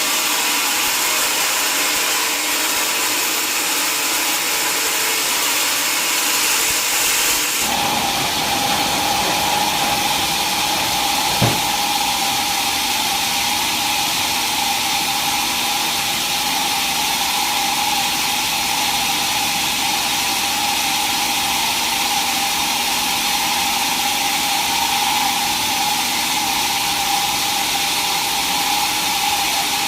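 Sawmill saw running while cutting mahogany wood, a steady machine noise. About eight seconds in the sound changes and a steady high whine sets in, with a single sharp knock a few seconds later.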